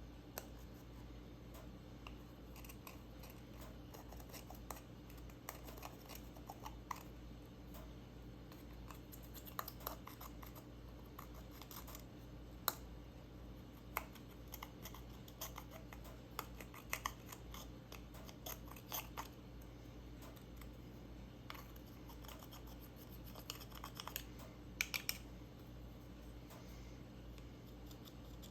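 Slime being handled, giving irregular small sticky clicks and pops, some in quick clusters, over a faint steady hum.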